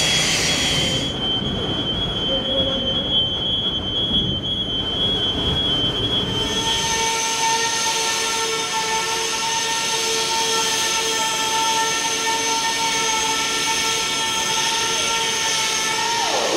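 Machinery running in a factory hall: a low rumble with a thin high tone, then from about seven seconds in a steady, multi-toned mechanical whine that drops in pitch near the end.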